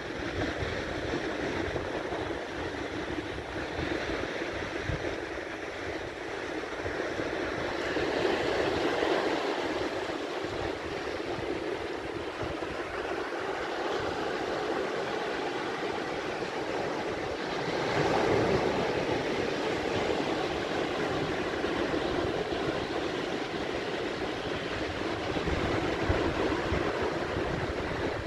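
Sea waves breaking and washing up a pebble beach: a continuous rush of surf that swells and eases as each wave comes in.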